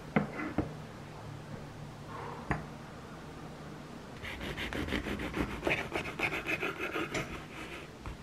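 A knife saws through a crusty olive ciabatta on a wooden cutting board: a quick run of rasping, crackling strokes starting about four seconds in. Before that there are a few light knocks of bottles and a ceramic dish set down on a table.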